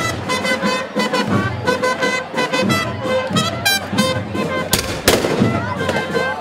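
Crowd of mock-battle fighters shouting and yelling, with two loud blank shots from muzzle-loading guns in quick succession a little under five seconds in.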